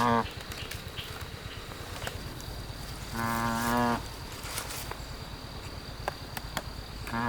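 A farm animal calling: short, low, pitched calls, one just at the start, one about three seconds in and another beginning near the end.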